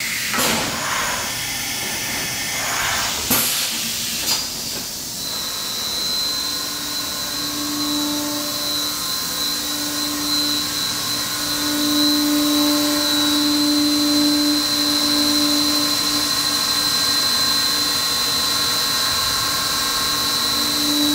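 Milltronics VMD30-F CNC vertical machining center running: a constant hiss, with a couple of sharp clicks in the first few seconds. A steady high whine starts about five seconds in, and lower motor tones come and go over it.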